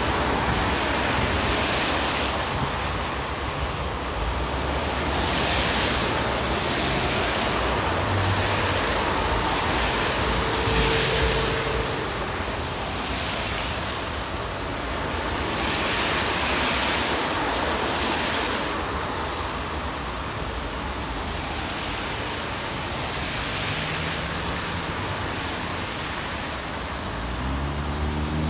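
Steady road traffic: tyre and engine noise from passing cars and buses, swelling every few seconds as vehicles go by. Near the end an engine note rises as a vehicle pulls away.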